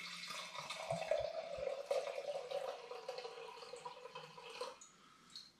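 Wine poured from a glass bottle into a wine glass, a steady trickling pour that stops about a second before the end.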